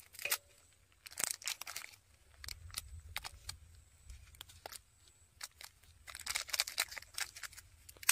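A small crinkly wrapper being handled and torn open by hand, crackling in short spells about a second in and again near the end.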